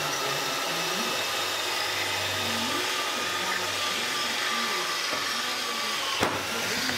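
A machine running steadily with an even rushing air noise, and one sharp knock about six seconds in as a metal cover plate is set down on the gearbox housing.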